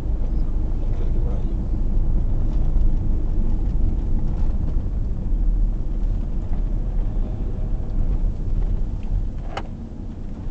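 Low, steady rumble of tyres and engine heard from inside a car driving at low speed, with a single sharp click about nine and a half seconds in.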